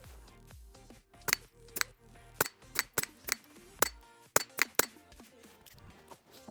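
A rapid string of about ten suppressed .22 LR pistol shots from a Volquartsen Black Mamba fitted with a SilencerCo Sparrow 22 suppressor, firing Eley Bullseye Pistol X rounds. Each shot is a sharp, surprisingly quiet crack, spaced under a second apart.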